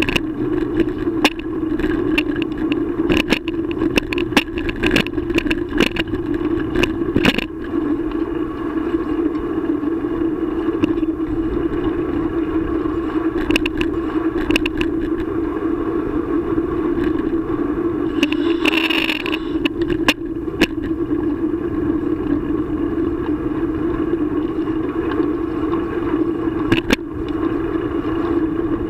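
Riding noise of a bicycle picked up by a camera mounted on the bike or rider: a steady hum and rumble, with frequent clicks and rattles as the mount jolts over the path. A brief hiss comes about two-thirds of the way through.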